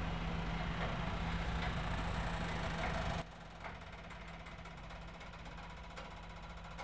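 Forced-air space heater running with a steady hum. About three seconds in the sound turns quieter, leaving mostly the low hum.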